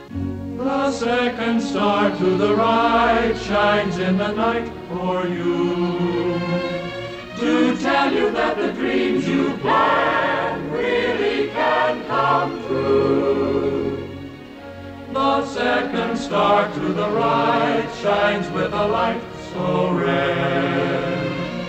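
Choral music: a choir singing long held notes with vibrato and no clear words.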